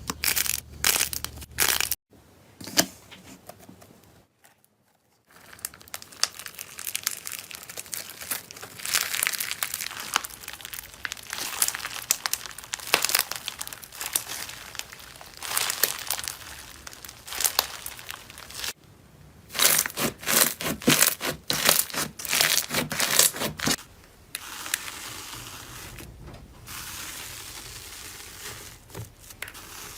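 Slime being squished, poked and stretched by hand, giving dense runs of small clicks and pops. It comes in several short segments with abrupt cuts between them.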